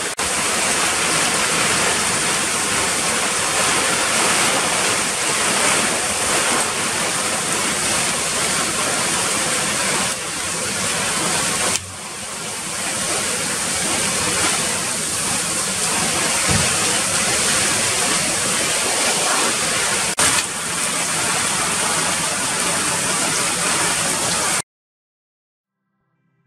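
Heavy rain pouring down on roof tiles and a paved patio: a loud, steady hiss of a downpour, dipping briefly about halfway through and cutting off suddenly near the end.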